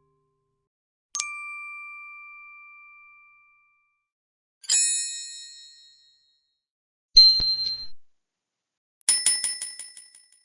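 Four separate ding sound effects, each struck sharply and left to ring out, with silence between: a clean two-tone chime with a long fade about a second in, a brighter, higher bell ding in the middle, a short ding with a rattling buzz, and near the end a fast run of repeated bell strikes like a ringing bicycle bell.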